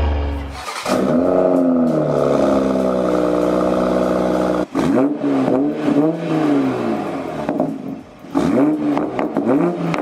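Tuned Toyota A90 Supra's turbocharged B58 inline-six with a catless downpipe and aftermarket cat-back exhaust being revved: one long rev that rises and falls, then a string of short, quick throttle blips from about halfway.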